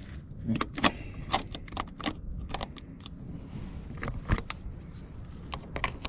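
Spring-loaded jumper clamps of a portable jump pack clicking and rattling as they are clipped onto a tractor battery's terminals: a string of irregular sharp metallic clicks and clatters.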